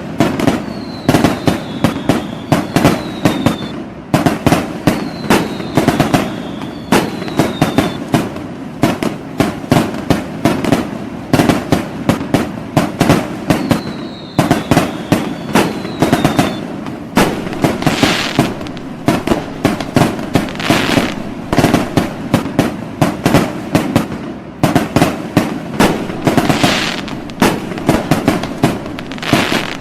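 Fireworks going off in a dense, continuous barrage of bangs and crackles, several a second, with pairs of short high falling whistles now and then.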